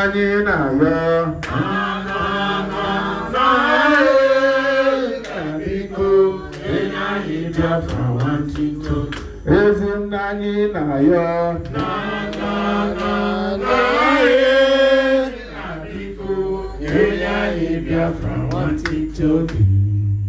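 A man singing a chant-like song into a microphone through a PA, over steady low backing notes that change every second or two.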